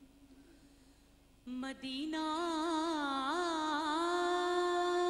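A woman's solo voice opening a naat recitation unaccompanied. After about a second and a half of near silence she starts one long held note that wavers in pitch partway through, then settles and holds steady.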